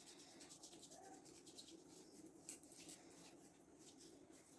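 Near silence with faint, rapid rubbing and tiny clicks of hands massaging oil into a small child's feet and legs.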